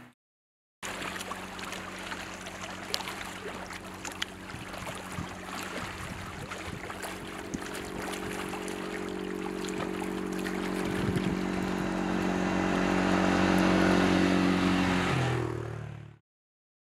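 ATV engine running at a steady pitch as it approaches, growing louder, then dropping in pitch as it passes close, over water lapping at a rocky shore. The sound cuts off suddenly near the end.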